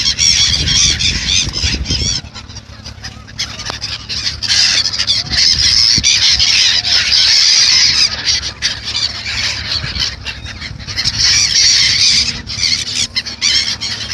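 A flock of gulls calling, many high-pitched squawking calls overlapping without a break. A low rumble sits under the calls for the first two seconds.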